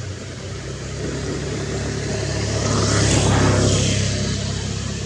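A road vehicle passing by: its rushing noise swells to a peak about three seconds in, then fades away.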